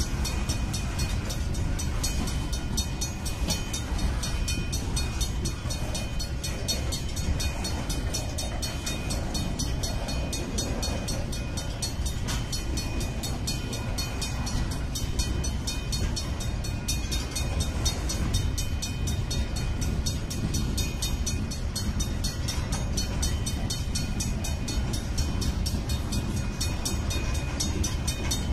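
Freight train boxcars rolling past at a grade crossing: a steady rumble and clatter of steel wheels on the rails. Over it comes a rapid, even ringing, typical of the crossing signal's bell.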